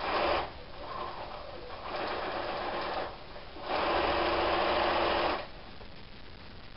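Electric domestic sewing machine stitching a seam in quilt block fabric in three runs: a brief one at the start, a softer one about two seconds in, and the longest one from about four to five seconds in. Then the machine stops.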